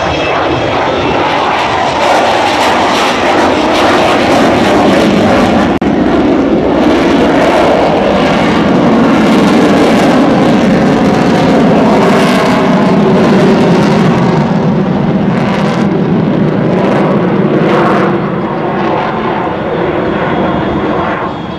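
Avro Vulcan bomber's four Rolls-Royce Olympus turbojets at high power as it passes and climbs away: loud, steady jet noise that swells over the first couple of seconds, with crackling through the middle, easing slightly near the end.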